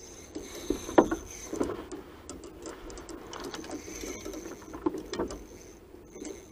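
Spinning reel being cranked against a hooked fish on a bent rod, with scattered sharp knocks and clicks, the loudest about a second in and about five seconds in.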